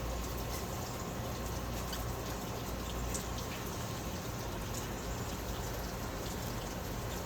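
Faint wet squishing and small clicks of sticky filter oil being worked into a foam air filter by hand, over a steady low hum.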